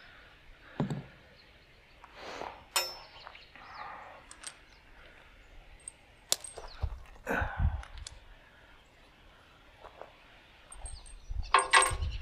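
Scattered metal clanks and knocks from hand tools and steel parts being worked on a tractor, with a ringing clang about three seconds in and the loudest clatter near the end.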